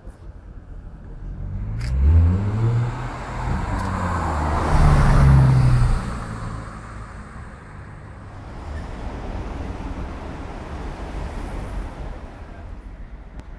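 Audi R8 engine revving hard as the car accelerates away, rising in pitch about two seconds in, with a second, louder pull that cuts off sharply around six seconds in. After that, quieter steady street noise.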